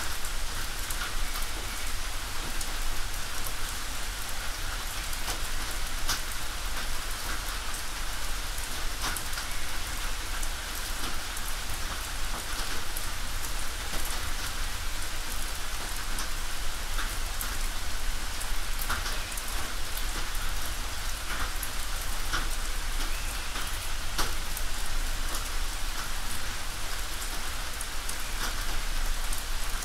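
Steady rain on a tin roof: a dense patter of drops with frequent sharper, louder drips scattered through it.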